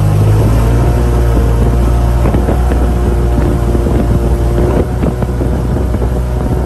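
Motorboat engine running steadily under way, a loud deep drone with a rushing wash over it; its note drops slightly just after the start.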